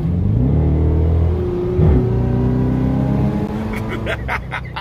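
Car engine accelerating hard, heard from inside the cabin: the pitch climbs, dips sharply about two seconds in as at a gear change, then holds and rises again before easing off near the end.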